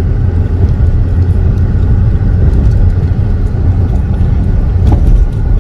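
Steady low rumble of road and engine noise inside a moving car's cabin, with a faint click near the end.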